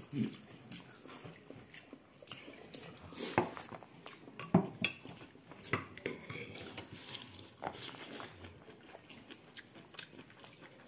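Close-up eating sounds: chewing and mouth smacks as rice is eaten by hand, with fingers mixing rice on a banana leaf. Irregular short clicks and smacks, a few louder than the rest.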